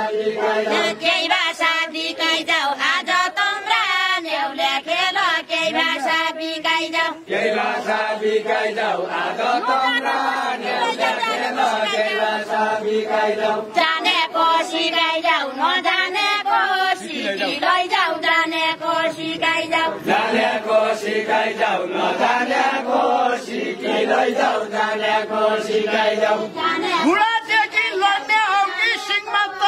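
Deuda folk song sung by a group of men and women, chanted in repeated phrases with short breaks between them.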